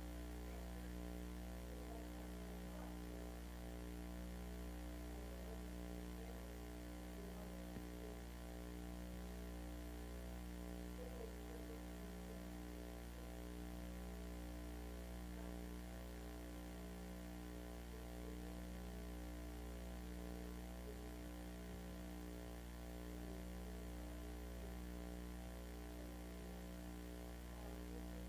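Steady, low electrical mains hum with a slow, even throb.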